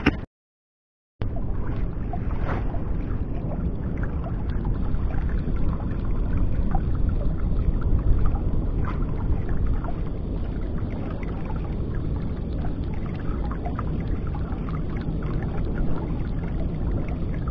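Steady rumble of wind on the microphone with water lapping against a small boat's hull, after a second of silence near the start.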